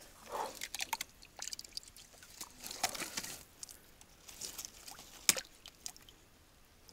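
Water splashing and dripping at the water's edge as a hooked fish is brought in to the bank, with scattered clicks and one sharp knock about five seconds in.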